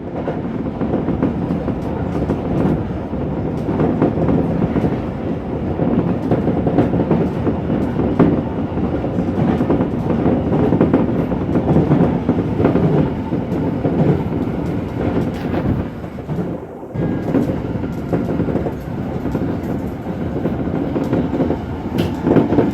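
Electric commuter train running on the rails, heard from inside the car: a steady rumble with the wheels clicking over rail joints.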